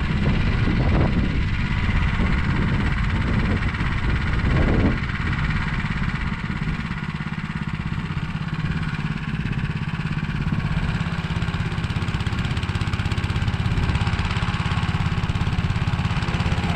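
Motor Sich walk-behind tractor engine running steadily under load while its rotary tiller works the soil, with brief swells in the sound about a second in and again near five seconds.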